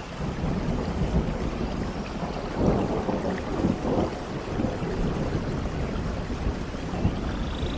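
Thunderstorm in a rainforest: steady rain with thunder rumbling low and swelling to its loudest about three seconds in.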